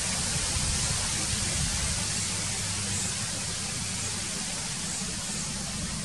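Steady outdoor hiss with a low rumble underneath, typical of wind on the microphone. A couple of faint high chirps come through, about three seconds in and again about five seconds in.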